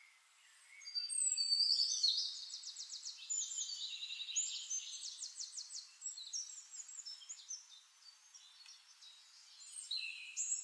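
Small birds singing: quick high-pitched trills and twittering chirps, starting about a second in, busiest for the first couple of seconds, then coming and going.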